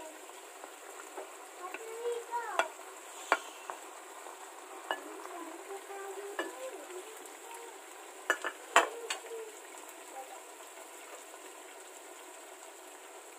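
Tomato sauce simmering and sizzling in a nonstick frying pan while pieces of fried tuna are slid in from a plate and pushed down with a wooden spatula. Several sharp knocks and clinks of spatula and plate against the pan, the loudest about nine seconds in.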